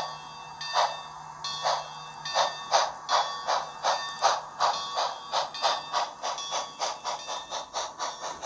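Model steam locomotive's onboard sound decoder (Bachmann Baldwin 2-8-0 with Sound Value) playing exhaust chuffs as the engine gets under way. The chuffs quicken from about one a second to about three a second.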